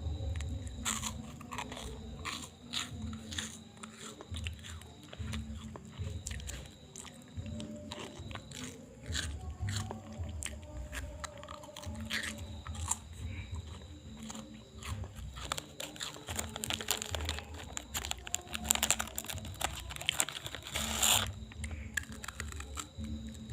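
Hands rubbing and pressing on skin during a traditional urut massage: irregular crackling, clicking friction and handling sounds.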